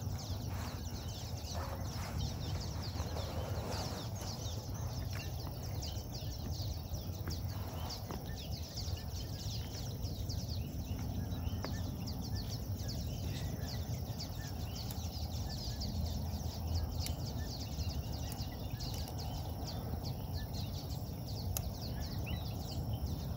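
Outdoor field ambience: a steady low rumble with many faint, short high ticks and chirps.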